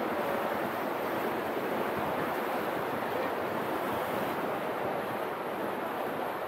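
Sea waves washing steadily against the breakwater's concrete blocks and rocks, with some wind.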